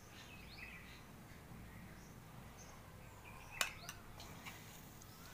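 Quiet background with a few faint bird chirps in the first second. About three and a half seconds in comes one sharp metallic clink on the stainless steel bowl as a spoonful of desi ghee goes in, followed by a couple of lighter taps.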